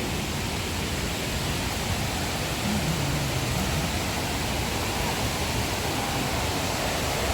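Steady rush of the Putna River's waterfall, an even, unbroken noise of fast water pouring over rocks.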